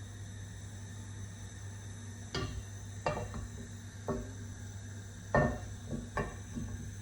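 Kitchenware knocking and clinking: five separate sharp knocks over a few seconds, some ringing briefly, over a steady low hum.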